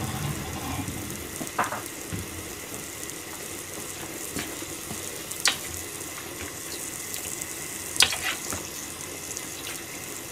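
Steady hiss of a small lidded aluminium egg-binding pan cooking pot-au-feu and egg on a high gas flame, with a few sharp clicks.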